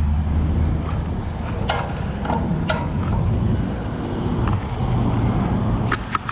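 Wind buffeting the microphone as a low, steady rumble, with a few sharp clicks about two seconds in, again about a second later, and a cluster near the end.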